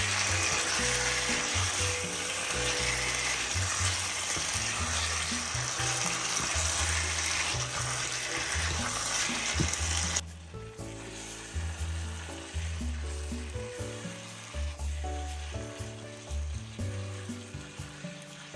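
Chicken pieces sizzling as they fry in hot oil and spice paste, over background music with a low bass line. About ten seconds in the sizzle drops off suddenly, leaving the music louder than a faint sizzle.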